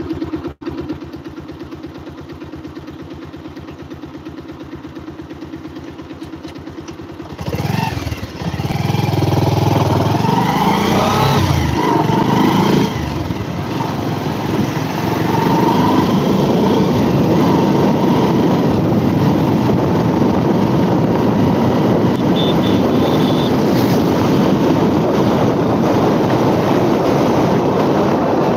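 Motorcycle engine idling with a steady beat, then revved about seven seconds in and rising in pitch as it pulls away. From about thirteen seconds on, a steady rush of engine and wind noise at riding speed, picked up by a phone mounted on the bike.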